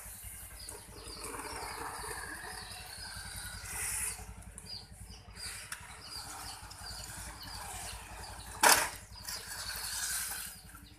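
Small electric motor of a radio-controlled toy car running as the car drives about, its noise swelling and fading as it moves, with one sharp knock near the end; birds chirp faintly behind it.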